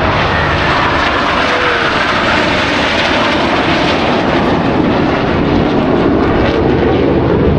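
Jet noise from a formation of KAI T-50B Golden Eagle single-engine jet trainers flying past: a loud, steady rushing, with a faint falling whine about two seconds in as they pass.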